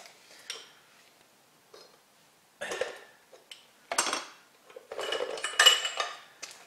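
Metal parts clinking and clattering as they are handled, in several short bursts, the busiest stretch near the end.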